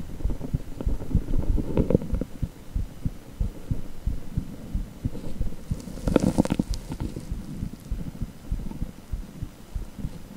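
Heartbeat sound from a cardiac ultrasound (echocardiogram): rapid, rhythmic low pulsing that keeps going. A brief louder rustling noise comes about six seconds in.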